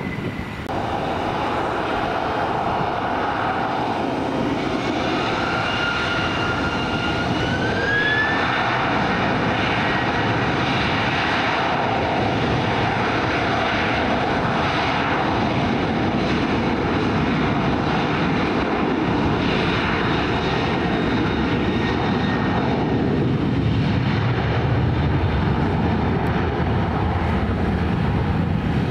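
Aeroplane engines running loud and steady, with a whine that rises in pitch between about five and eight seconds in, after which the sound grows a little louder and holds.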